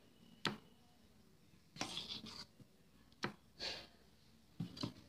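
Spoon scraping thick batter out of a steel bowl: a sharp clink, then several short scrapes spaced about a second apart.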